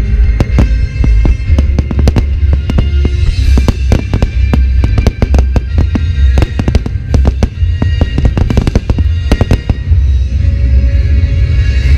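Aerial fireworks shells bursting in rapid succession, dozens of sharp bangs and cracks, over music with a heavy bass.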